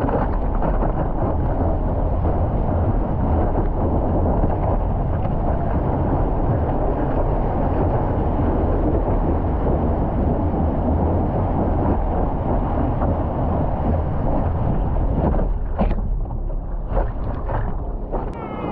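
Wind buffeting the microphone, a loud steady rumble that eases about fifteen seconds in, followed by a few short sharp knocks near the end.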